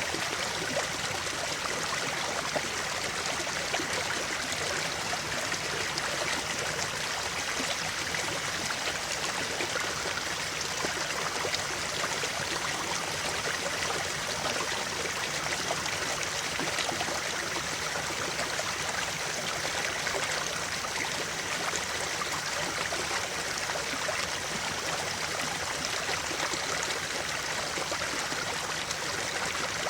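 Running water of a stream, a steady, even rush with fine splashing and trickling throughout.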